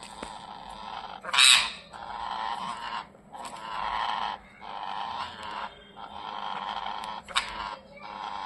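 Ringneck parrots giving a run of harsh, rasping squawks, roughly one a second, with a louder, shriller screech about a second and a half in; the sound of the birds squabbling.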